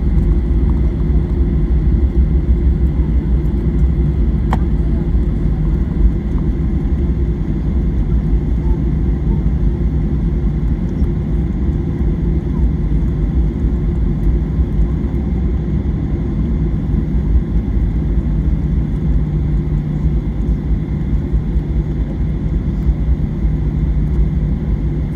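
Steady low rumble of a Boeing 737's cabin as the airliner taxis after landing, its engines at low thrust, with a steady hum underneath.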